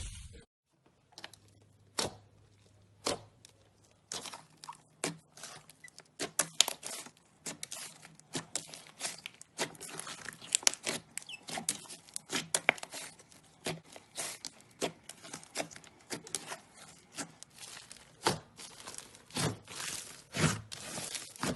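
Slime being squeezed and played with by hand, giving many sharp, irregular crackling pops and clicks. The pops are sparse at first and come thick and fast after about five seconds.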